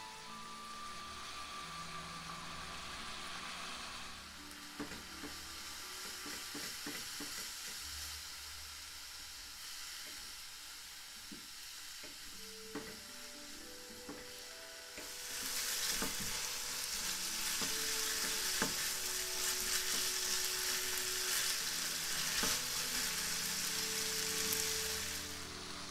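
Spaghetti with shredded cabbage and carrot sizzling as it is stir-fried in a non-stick wok, with the scrape and tap of a spatula tossing the noodles. The sizzle grows louder about halfway through and eases just before the end.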